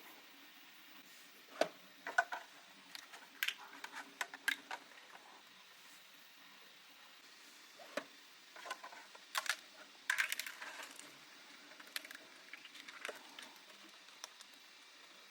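Hard 3D-printed plastic parts clicking, tapping and rattling as they are handled and fitted together, in irregular small knocks with a few sharper clacks.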